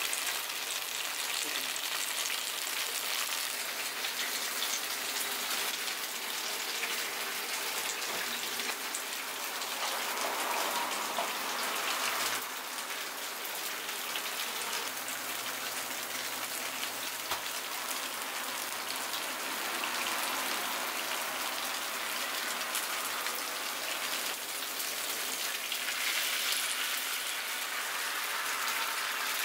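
Takoyaki batter sizzling steadily in the hot cups of an iron takoyaki griddle, an even hiss.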